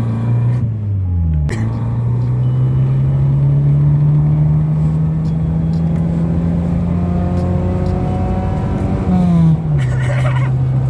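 Car engine and exhaust with the muffler taken off, heard while driving. The engine note drops about a second in, climbs slowly as the car accelerates, then falls again near the end, as at a gear change.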